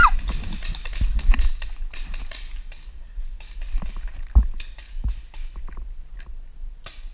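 Scattered irregular clicks and knocks from paintball equipment, with a couple of sharper thumps about four and five seconds in.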